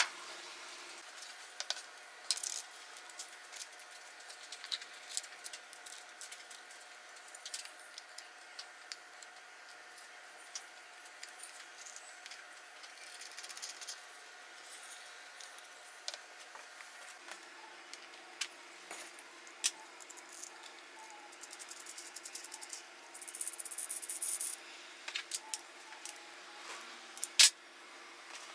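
Small clicks, taps and clinks of metal hardware (bolts, washers, a threaded insert) and wooden parts being handled and fitted together while a stop block is assembled, with a short scraping hiss about 23 seconds in and a sharper click near the end. A faint steady hum runs underneath.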